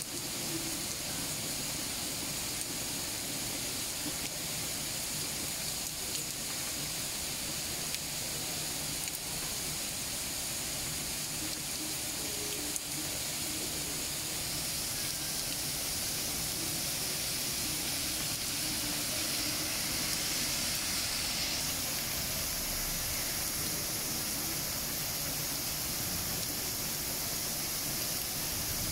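Heavy rain pouring steadily, a dense even hiss that grows a little stronger about halfway through.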